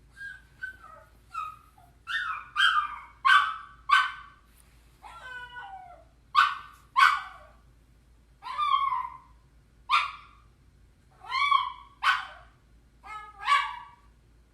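Small dog whining in a string of short, high cries, most falling in pitch, with one longer wavering whine about five seconds in.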